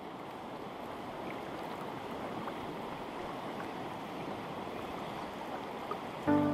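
A river flowing, a steady even rush of water. Music comes in right at the end.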